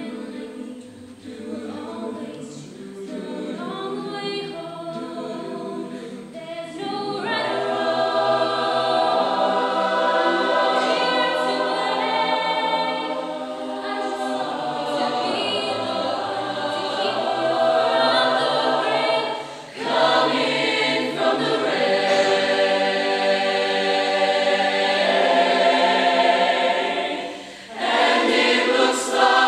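High school choir singing a slow ballad. It is soft at first and swells to full voice about seven seconds in, with brief breaks between phrases twice later on.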